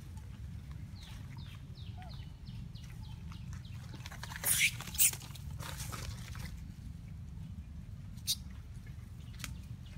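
Animal calls: a quick run of short, high, falling squeaks, then two loud harsh squawks or screeches about four and a half seconds in, with a sharp click later, over a low steady rumble.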